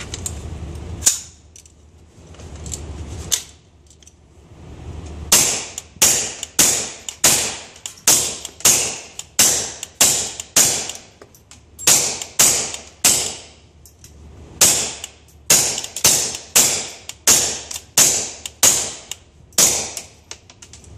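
.22 long rifle AR-style short-barreled rifle with a 4-inch barrel firing semi-automatic: about two dozen sharp cracks. Two single shots come a couple of seconds apart, then a string of shots at roughly two a second with a couple of short breaks.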